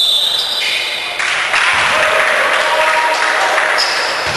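Echoing gymnasium noise during a pickup basketball game on a hardwood court: indistinct players' voices and court noise, with a dense hiss that grows louder about a second in.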